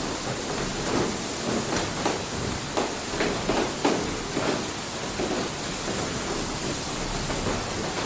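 Inside a water mill: a steady rush of running water, with short knocks and splashes breaking through it at irregular moments.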